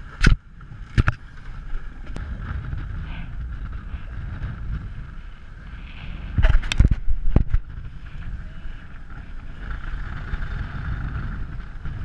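An Ultra 30 sailboat under way: wind buffeting the microphone and water rushing past the hull, with a few sharp knocks, two near the start and a cluster about halfway through.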